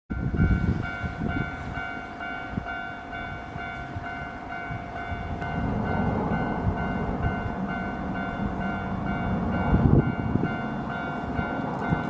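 Japanese railway level-crossing warning bell: an electronic chime ringing about three times a second, the crossing's warning of an approaching train, over a steady tone and low rumbling noise that swells now and then.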